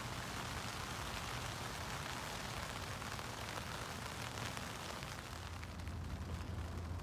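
Steady rain falling on the tent's fabric roof, heard from inside as an even hiss. A low hum joins it about five seconds in.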